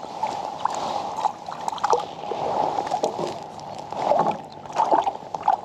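Water gurgling and slapping against a plastic kayak hull, with scattered small splashes from a hooked bream at the surface.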